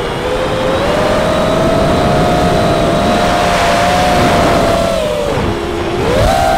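Brushless motors and propellers of a GEPRC Leopard LX6 FPV quadcopter whining in flight, picked up on the drone itself. The pitch holds fairly steady, dips lower about five seconds in as the throttle comes off, then climbs sharply near the end as it is applied again.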